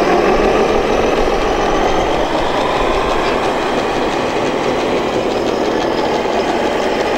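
Truck engine sound running steadily and loudly, a continuous dense drone.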